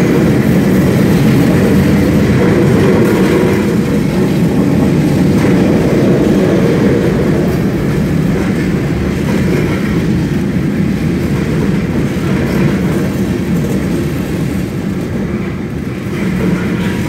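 Freight train tank cars and covered hopper cars rolling past close by: a loud, steady rumble of steel wheels on rail.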